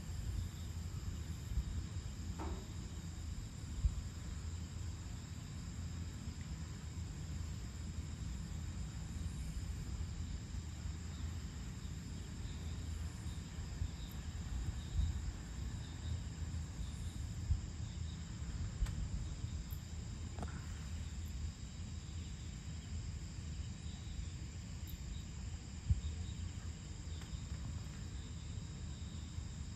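Evening chorus of crickets and other insects, a steady high trilling that does not let up, over a steady low background rumble.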